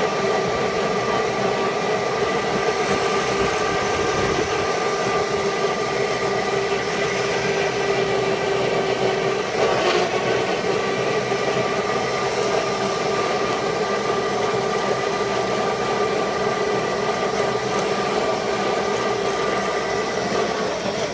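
ME1004 48-volt DC electric motor of a converted riding mower, driving the belt and hydrostatic transmission at speed in high gear: a steady whine with several held tones over mechanical noise, dipping briefly about halfway through.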